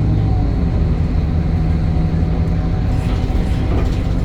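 Temsa Avenue LF 12 city bus's DAF Euro 5 diesel engine running with a steady low drone, and a fainter higher whine that fades about half a second in.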